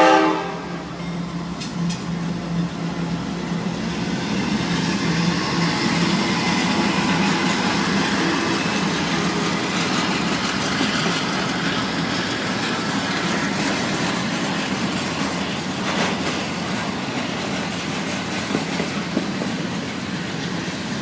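Freight train cars rolling past a grade crossing: a steady clatter of steel wheels on rail with occasional sharp clicks. A locomotive horn cuts off right at the start.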